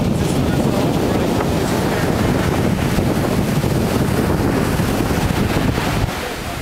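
Wind buffeting the microphone over the wash of surf running up the sand; the wind rumble eases about six seconds in.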